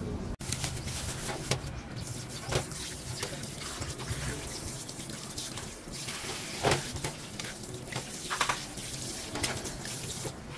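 Tap water running and splashing onto raw pork belly as it is rinsed by hand in a stainless steel colander. The water starts about half a second in and carries a few sharper splashes.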